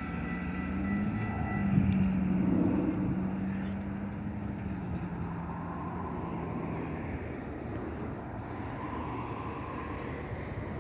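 Railroad crossing signal bell ringing as a high steady tone that stops about two seconds in as the gates lift. Then road vehicles drive over the crossing: a low engine hum and tyre noise that swell around two seconds in and settle into steady traffic noise.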